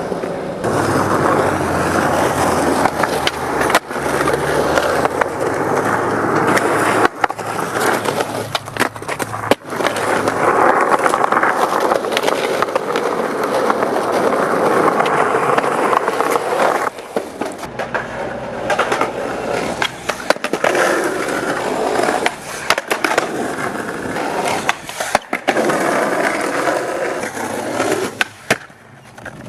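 Skateboard wheels rolling on concrete and pavement, with sharp wooden clacks of the board popping and landing several times at irregular intervals.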